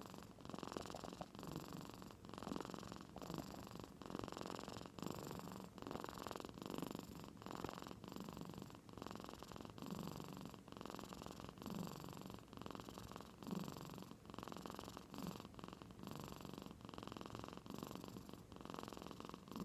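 A domestic cat snoring in deep sleep: a purr-like rasp on each breath, rising and falling about once every second and a bit, like an old man's snoring.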